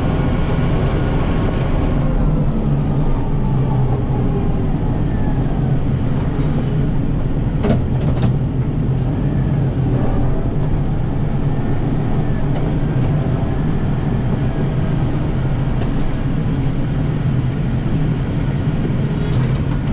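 Kubota M7060 tractor's diesel engine running steadily with its front-mounted snowblower working, a continuous low drone. Two sharp clicks are heard about eight seconds in.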